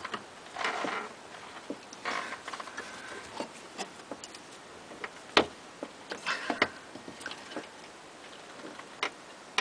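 Light clicks and short rustling scrapes as needle-nose pliers and fingers work a rubber fuel hose loose from its fitting on the fuel pump assembly, with one sharper click about five seconds in.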